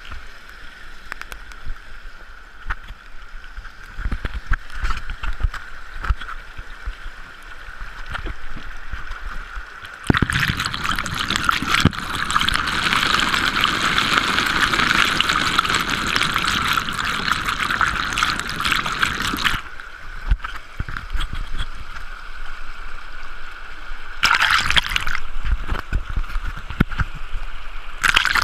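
Stream water rushing through and over an Eldorado sluice box, heard close up at the water's surface, with scattered clicks and knocks. The rushing grows much louder for about ten seconds in the middle, and there are short loud surges near the end.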